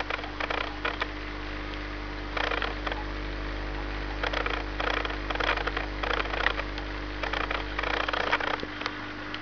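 Steady electrical hum of aquarium equipment, overlaid by about ten short, irregular crackly bursts of noise.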